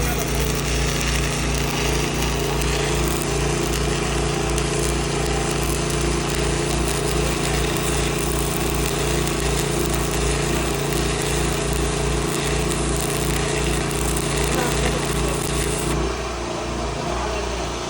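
Stick welding on carbon steel: the arc's steady crackle and hiss over a steady machine hum. About 16 seconds in the arc stops and the hum falls in pitch.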